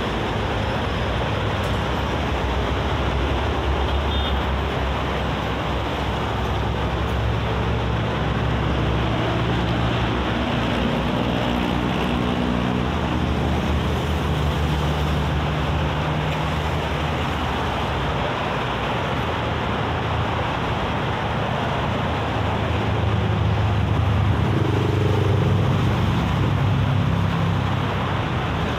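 Steady noise of traffic on a multi-lane expressway, with cars, buses and trucks passing and their engines humming as they come and go. It grows louder for a few seconds near the end as a large vehicle goes by.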